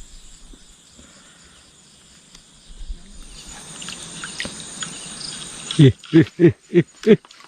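Night chorus of crickets and other insects, a steady high trill. Near the end, five short, loud calls, each falling in pitch, come in quick succession at about three a second.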